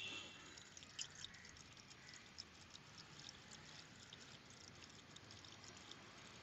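Engine coolant poured in a steady stream from a plastic jug into a car radiator's open filler neck: a faint splashing trickle with many small drips and ticks, and one sharper click about a second in.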